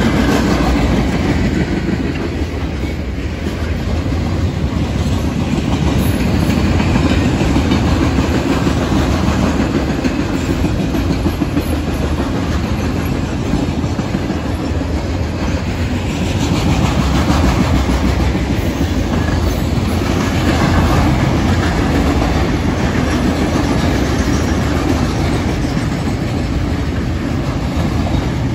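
A freight train's loaded flatcars rolling steadily past close by: the loud, continuous rumble of steel wheels on the rails.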